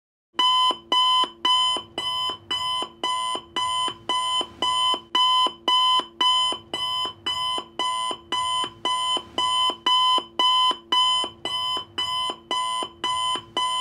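Countdown clock sound effect timing the answer period: short, evenly spaced pitched ticks, a little under two a second, keeping a steady beat.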